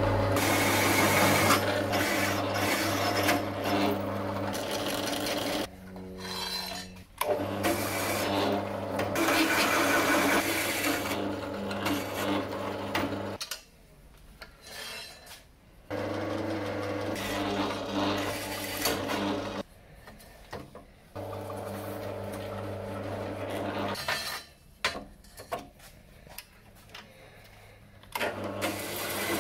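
Pedestal drill driving a 30 mm hole saw through steel rectangular hollow section: the saw teeth cutting the steel over the drill motor's steady low hum. The cutting comes in several stretches, with short quieter pauses between them.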